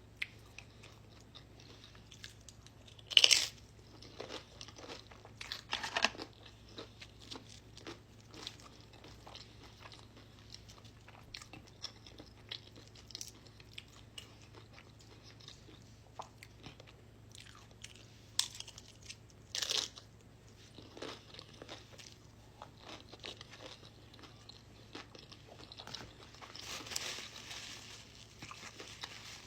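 Close-up eating sounds of crunchy Doritos tortilla chips: three loud crunching bites, about 3 s in, about 6 s in and just before 20 s, with quieter chewing and crunching between them.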